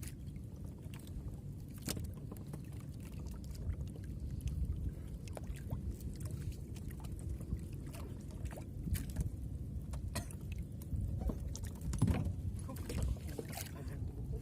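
Water lapping and sloshing against the hull of a small fishing boat, with a steady low rumble and scattered light knocks and clicks from the boat and gear, the loudest cluster about twelve seconds in.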